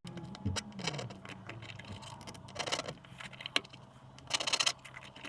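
Three scratchy strokes of a pencil drawn along a rule across the end of an acrylic pen blank, marking diagonals to find its centre. Small handling clicks come in between, over a steady low hum.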